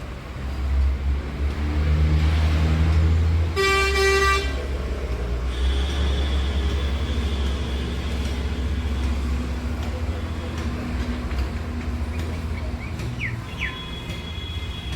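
A vehicle horn sounds one short blast about four seconds in, over the steady low rumble of a nearby engine running. Fainter high-pitched beeps come later.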